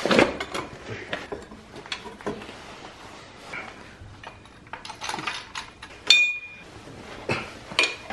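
Steel engine-stand mounting arms, bolts and hand tools clinking and knocking against each other as the stand is bolted to the back of an engine block. About six seconds in, one piece of metal rings briefly.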